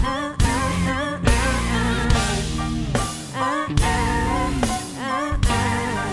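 A female lead singer sings wavering, melismatic lines over a live band of keyboards, bass and drums; the heavy low end drops out and comes back in a rhythmic pattern.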